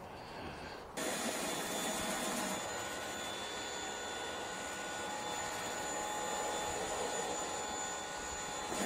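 A pressure washer running and spraying water steadily through a rotary surface cleaner onto concrete: an even hiss with a faint steady whine, starting suddenly about a second in. The owner finds that the cleaner has hardly any pressure.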